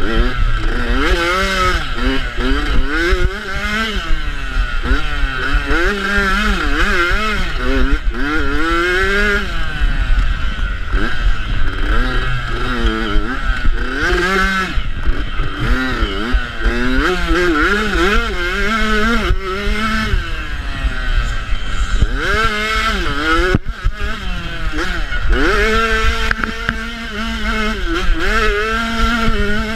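A 250 cc motocross bike's engine revving hard and dropping back over and over as the rider shifts, its pitch climbing and falling every second or two, then holding steadier near the end. Wind rumble on the microphone underneath.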